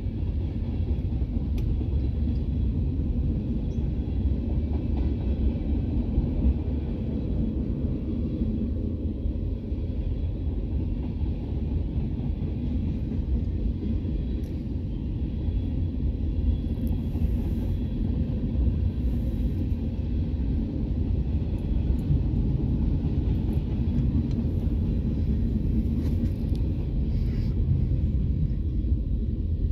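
Norfolk Southern freight train rolling steadily past: a continuous low rumble of tank cars, covered hoppers and boxcars on the rails, heard from inside a car.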